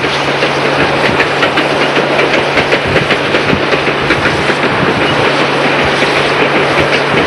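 Passenger train running at speed, heard from a vehicle pacing it alongside the track, with heavy wind noise on the microphone and a steady low hum.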